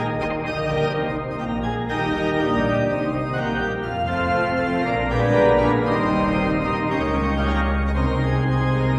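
Organ music: a melody of quickly changing notes over a bass line, played as part of an NHL goal celebration.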